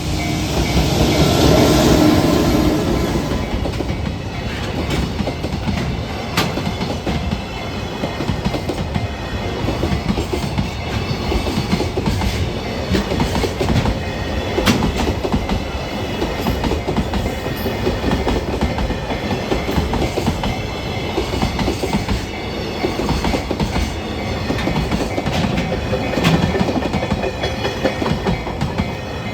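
JR Freight EF210-300 electric locomotive passing, loudest in the first few seconds, then a long train of container wagons running over the rail joints at a level crossing. The wheels give a steady clickety-clack of joint beats throughout, with a level-crossing warning bell ringing behind it.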